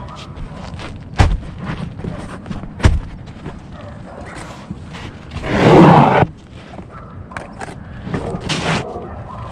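Work noise on a tile roof: two sharp knocks about a second and a half apart, then, past the middle, a louder rough noise lasting about a second, with lighter clicks and clatter between.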